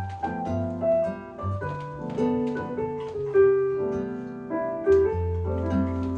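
Background piano music: a melody of separate notes over sustained low bass notes.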